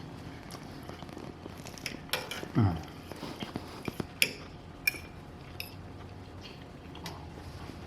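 Eating utensils clinking against a dish several times in separate sharp clicks. A short low sound falling in pitch comes about two and a half seconds in.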